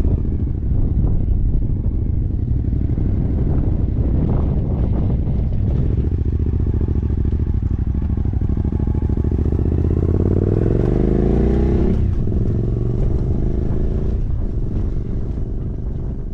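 Two-up motorcycle engine running under way, with wind rumbling on the microphone. From about eight seconds in the engine pitch climbs steadily as the bike accelerates, then drops sharply at a gear change about twelve seconds in, and the engine carries on pulling.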